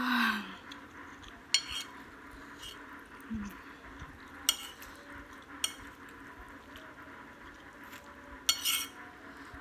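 Metal spoon and fork clinking and scraping against a ceramic plate while scooping up noodles: a handful of sharp, ringing clinks, with a quick cluster near the end. A short hum from the eater is heard at the very start.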